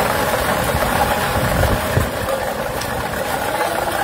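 Air-mix lottery ball machine's blower running steadily, tumbling the numbered balls, with a single knock about two seconds in while a ball is blown up into the capture chamber.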